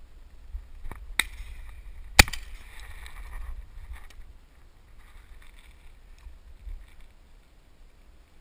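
Two shotgun shots: a fainter crack, then about a second later a much louder, sharp report with a brief ringing tail. A low wind rumble sits on the microphone underneath.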